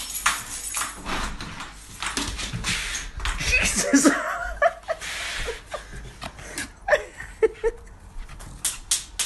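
A small dog barking again and again in short, sharp barks, which come quicker and more evenly near the end.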